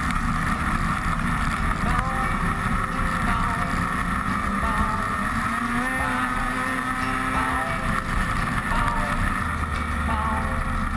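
Snowmobile engine running steadily at trail speed, its pitch wavering slightly, with wind rushing over the helmet-mounted camera.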